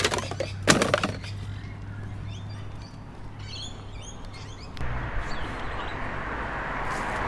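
A couple of sharp knocks or clatters about a second in, then faint birds chirping over a steady low engine hum. From about five seconds in, a louder, even rushing noise sets in.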